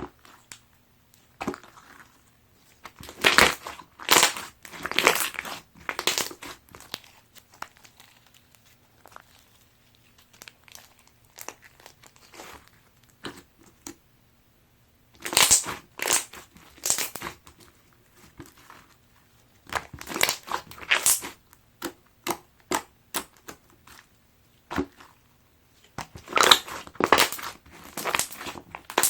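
Clear slime being squeezed and pressed by hand, giving clusters of crackling, popping clicks in several bursts with quieter stretches between.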